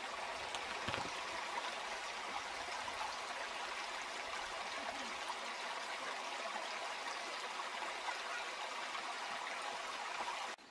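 Small stream of water trickling and splashing over loose stones, a steady sound.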